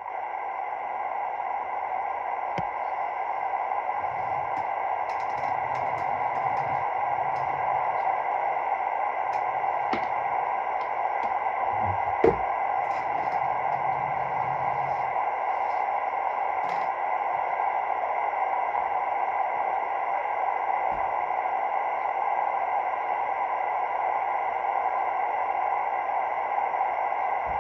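Steady hiss of radio static from a CB radio receiver's speaker with no transmission coming through, broken by a few faint clicks and a sharper pop about twelve seconds in.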